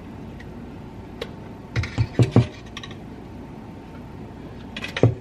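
Wooden spatula scraping and tapping sour cream out of a plastic tub: a few light clicks, then three quick knocks about two seconds in, and another cluster near the end.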